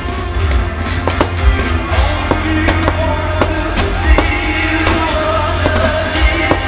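Loud music with a heavy bass plays throughout a fireworks display, while shells burst in repeated sharp bangs, one every second or so.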